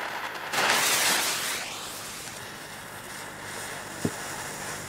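A firecracker's lit fuse hissing: a sudden hiss about half a second in that fades over about a second into a faint steady hiss, with a small click near the end.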